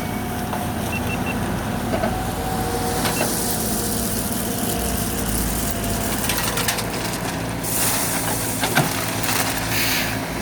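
Heavy truck's diesel engine running steadily, with long hisses of released air partway through and three quick faint beeps about a second in.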